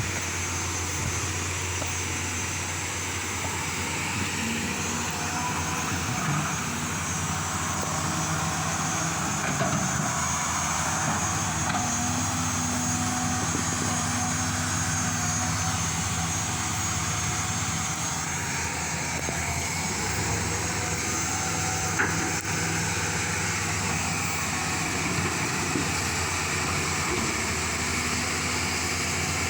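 Engine running steadily with a low, even drone, and one sharp knock about three-quarters of the way through.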